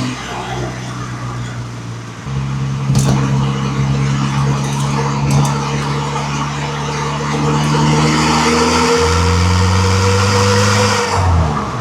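1.9 TDI four-cylinder turbodiesel engine running. It gets louder about two seconds in, holds a steady note, and drops in pitch near the end.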